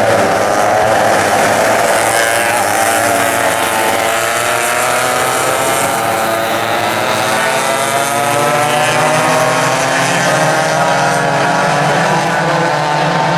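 Several small vintage two-stroke kart engines, 87cc McCulloch and 135cc West Bend, running hard at high revs together, their pitches gliding up and down against one another as the karts accelerate and race past.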